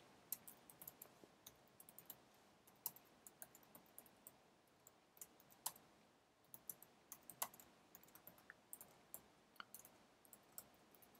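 Typing on a computer keyboard: faint, irregular keystroke clicks, sometimes in quick clusters and sometimes with pauses between them.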